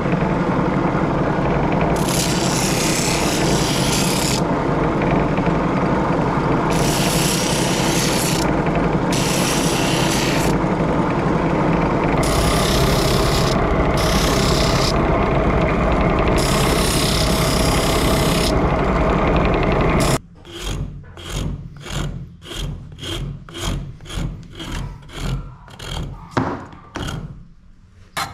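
Homemade drum sander running with a steady motor hum, with wooden handle scales pressed against the spinning sandpaper drum in repeated hissing passes of one to two seconds each. About twenty seconds in this stops abruptly and gives way to rhythmic hand-tool strokes on wood, about two a second.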